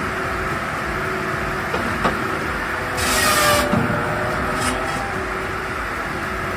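A heavy wood-processing machine runs with a steady engine drone. There is a sharp knock about two seconds in, a loud hissing burst about three seconds in, and a shorter hiss a little later.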